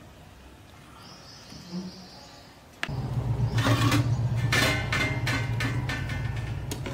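Metal spoon scraping and knocking against a metal pan of cooked rice: a run of clicks and scrapes starting about three seconds in, over a steady low hum. The stretch before that is quiet.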